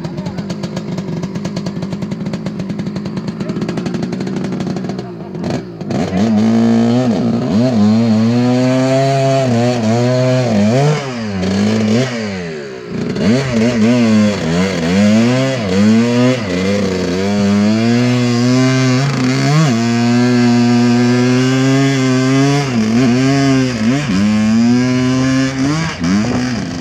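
Dirt bike engine running fast and ragged at first, then revved hard again and again from about six seconds in, the pitch climbing and dropping and held high for stretches, as the bike is bogged in deep mud with its rear wheel spinning.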